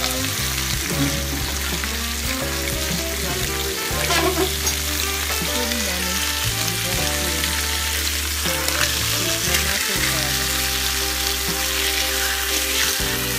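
Tilapia fillets sizzling steadily as they fry in oil in a ridged grill pan, with a few scrapes and knocks of a slotted spatula turning them over.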